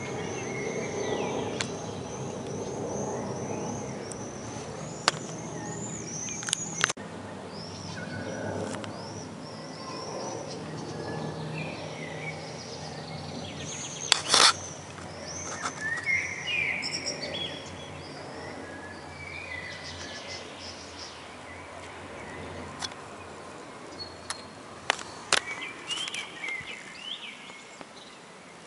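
Distant jet airliner passing high overhead, a low rumble that fades away over the first half, while small birds call with many short high chirps throughout. A few sharp clicks come through, the loudest about halfway.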